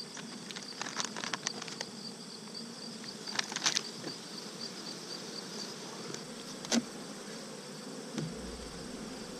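Honey bees buzzing around an open hive, with a high, evenly pulsing chirp running through it. Crackles of a plastic packet being handled come about a second in and again between three and four seconds in, and a single sharp click comes near seven seconds.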